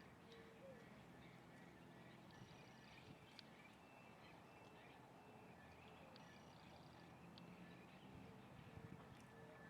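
Faint bird calls, short high notes coming in a couple of brief clusters over quiet outdoor ambience.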